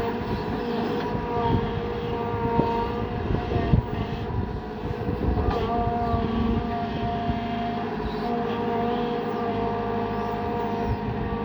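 Kobelco SK120 hydraulic excavator at work: the diesel engine runs steadily with a constant hydraulic whine over it, and a few sharp knocks sound partway through.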